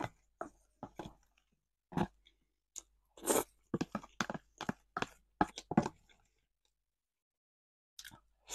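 Close-up eating sounds: a wooden spoon scraping a plastic food container, with chewing and crunching, in a string of short clicks and crackles that stops about six seconds in.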